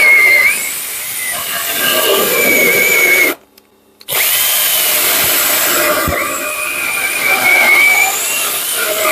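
Parkside 20 V cordless mini chainsaw (PGHSA 20 LI) running and cutting through wood, its motor whine dipping and wavering as the chain bites. It stops for under a second about three and a half seconds in, then starts again, the whine settling lower as the cut takes load.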